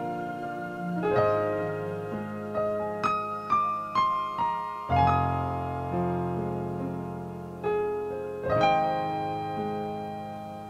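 Slow instrumental new age piano music: struck chords left to ring and fade, with a short falling run of single notes about three to four and a half seconds in.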